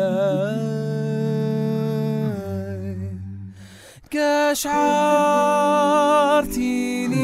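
One man's multitracked a cappella voices, with no instruments: a lead melody over held vocal chords and a low held bass line. The layered voices fade out about three seconds in, then come back in louder at about four seconds.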